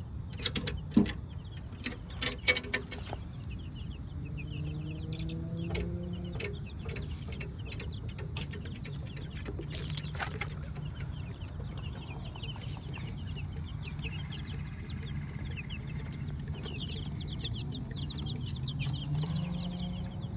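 Young chickens peeping and clucking, many short high calls throughout. A few sharp knocks and rattles in the first three seconds.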